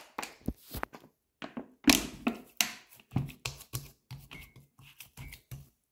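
A hand patting and pressing soft bread dough in a plastic bowl: irregular taps and dull thumps, roughly two a second in the later part, with a few sharper knocks.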